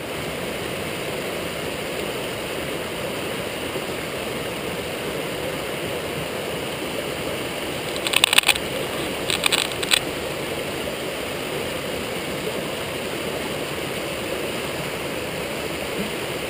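Rushing mountain brook, high with rainwater, pouring steadily over rocks. A few sharp knocks or clicks come in two quick clusters about eight and nine and a half seconds in.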